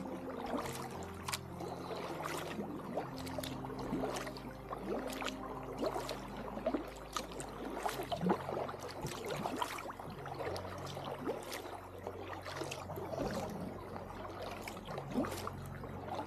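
Kayak paddle dipping and stroking through calm water, with irregular splashes and drips falling from the blade.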